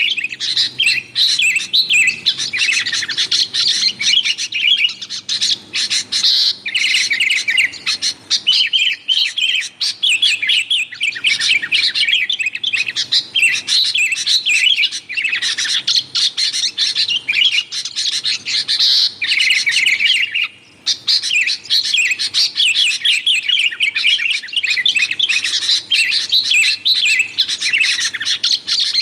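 Sooty-headed bulbuls chattering noisily in a dense, rapid run of chirps and calls, with one short break about twenty seconds in.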